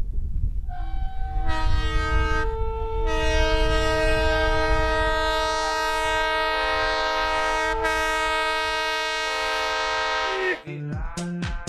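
Diesel locomotive ploughing through deep snow with a low rumble, sounding its multi-note air horn in a long, steady chord. About a second before the end the horn cuts off and music with a beat starts.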